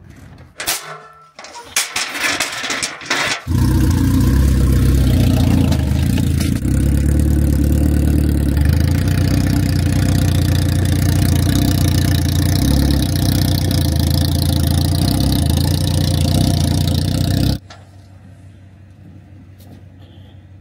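A few knocks and handling sounds, then a vehicle engine starts about three and a half seconds in and runs loud and steady. It cuts off suddenly near the end.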